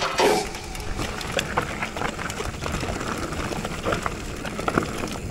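Downhill mountain bike riding a rough trail: a steady rush of tyre and ride noise, with the bike rattling and knocking many times over the bumps.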